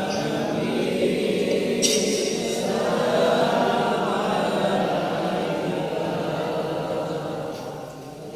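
A man reciting the Quran in the melodic tilawah style, singing one long sustained phrase that swells midway and tapers off near the end.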